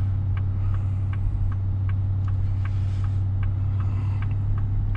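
Truck cabin noise while driving: a steady low engine and road drone, with a light ticking about three times a second.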